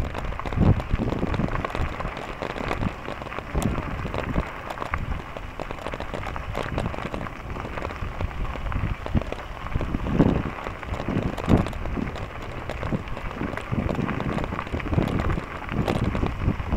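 Bicycle tyres rolling over a gravel path, a steady crackling hiss, with wind buffeting the microphone in gusts.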